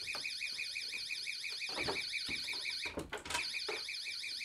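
Battery-powered door alarm sounding a rapid, shrill warbling siren, set off by the bedroom door opening. It cuts out briefly about three seconds in, amid a few knocks of the door, then starts again.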